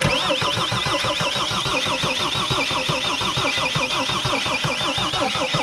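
Starter cranking a Mercedes Sprinter diesel engine that does not catch, cutting in suddenly with even rhythmic pulses, about five or six a second, and a wavering starter whine. The engine is being cranked to bleed air out of the fuel system after a fuel pump replacement.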